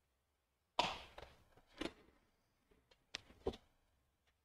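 A person moving about in a quiet room: four short, soft knocks and thumps. The first, about a second in, trails off in a brief rustle; two sharper clicks come near the end.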